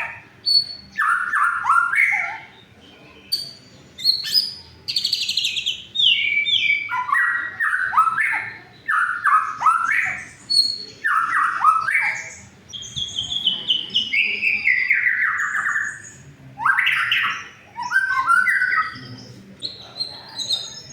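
White-rumped shama (murai batu) singing loud, varied phrases of quick whistles and falling sweeps, about a second each with short pauses between them, and one longer falling run about two-thirds of the way through. This is a rival's challenge song of the kind used to provoke a silent shama into singing.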